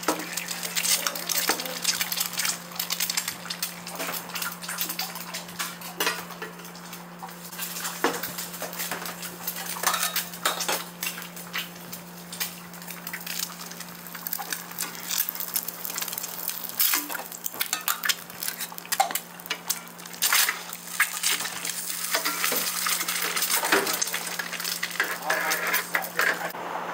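Food-stall clatter of ceramic bowls, a ladle and stainless-steel pots knocking and scraping together: many sharp clinks over a steady low hum.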